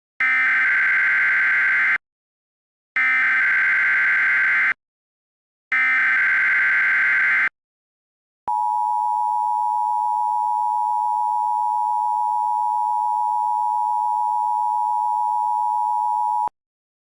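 Emergency Alert System header: three identical bursts of warbling SAME data tones, each just under two seconds with about a second between them, then a steady EAS attention tone for about eight seconds that cuts off suddenly. It marks the start of an emergency weather alert.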